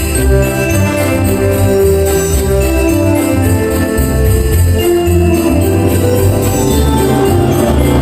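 Christmas music with jingle bells shaking to a steady beat over held instrumental notes.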